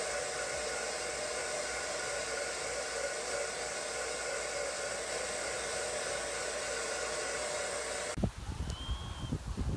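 Hand-held hair dryer blowing steadily, an even rushing noise with a faint whine. About eight seconds in it cuts off abruptly, giving way to surf and irregular low wind rumbles on the microphone.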